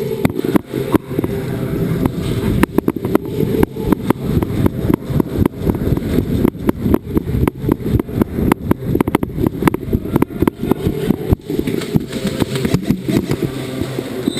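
Airsoft guns firing during play: many sharp snaps and clicks, irregular and at times in quick runs, thinning out near the end. Under them runs a steady low rumble.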